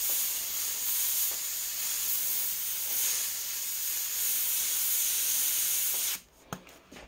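Airbrush spraying paint: a steady hiss of compressed air through the nozzle that cuts off suddenly about six seconds in, followed by a couple of faint clicks.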